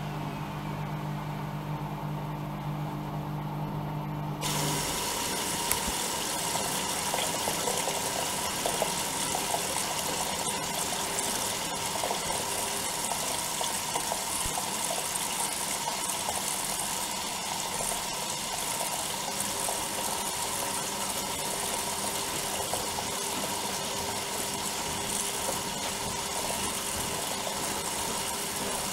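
Bauknecht WAE8575 front-loading washing machine: a steady motor hum stops about four and a half seconds in, and water starts rushing in through the inlet valve, a steady hiss filling the drum.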